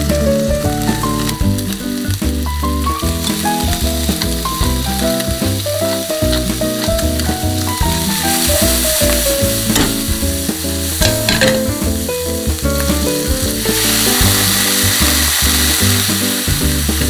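Food sizzling as it fries in a pan, the sizzle swelling twice, under background music with a melody and bass line.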